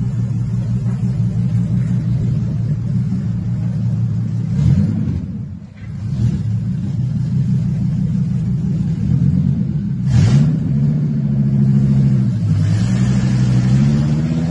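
Ford Triton 6.8-litre V10 in a 1970 Ford F100 pickup running as the truck drives, blipped briefly twice, about 5 s in and about 10 s in. Near the end its pitch climbs as it accelerates.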